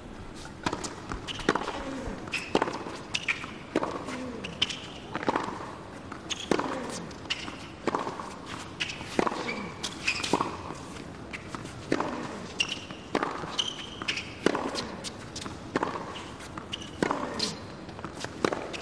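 Tennis rally on a hard court: racket strikes alternating with ball bounces, a sharp pop about every two-thirds of a second, with short shoe squeaks between shots.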